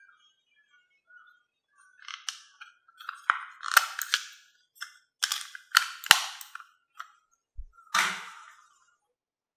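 About a dozen sharp clicks and knocks at irregular spacing, starting about two seconds in. The last one, near the end, is longer and fuller than the rest.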